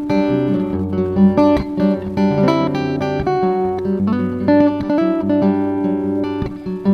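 Acoustic guitar played fingerstyle, with a looped guitar part laid underneath: plucked melody notes over a steady line of low bass notes.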